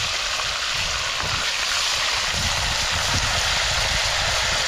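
Fish frying in hot oil in a pan over a wood fire: a steady, dense sizzle, with a low, uneven rumble of wind on the microphone.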